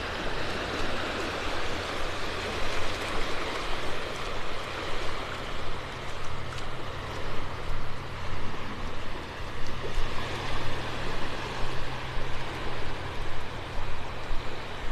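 Shallow surf washing on a beach with wind rushing over the microphone: a steady rushing noise with a low rumble that swells and dips about once a second.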